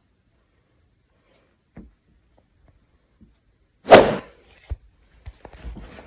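A single loud bang, like a slam or hard impact, about four seconds in, with a short ringing tail, followed by a few lighter knocks and rustling. A couple of faint clicks come before it.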